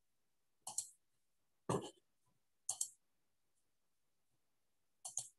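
Four short, faint clicks from a computer being worked to share a screen on a video call: three about a second apart, then a quick double click near the end, with the call's audio cut to dead silence between them.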